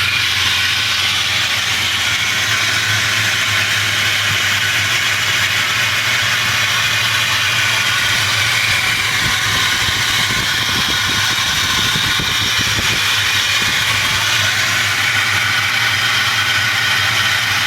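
Car engine idling with the belt tensioner pulley bearings making a steady high whirring noise over the engine's low hum: the bearings are worn.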